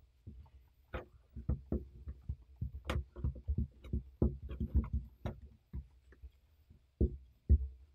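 A spoon knocking and scraping against a glass mixing bowl in irregular strokes while shortening is mashed into dry flour, with two louder knocks near the end.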